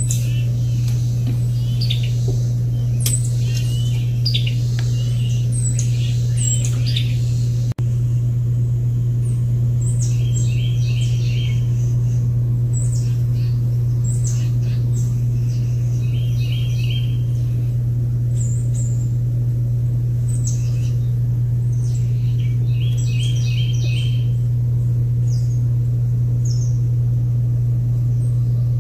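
Several wild birds chirping and singing. One repeats a short run of quick chirps about every six seconds. A loud steady low hum runs underneath, and the sound drops out briefly about eight seconds in.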